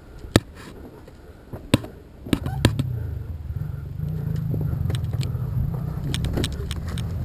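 A couple of sharp clicks, then about two seconds in a vehicle engine comes in and keeps running steadily and low, with small knocks and rattles over it.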